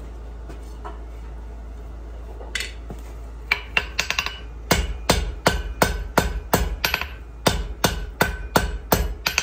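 Blacksmith's hand hammer striking a red-hot steel bar on the anvil to draw out a hook. A few light taps come partway in, then a run of steady blows, about two to three a second, each ringing off the anvil.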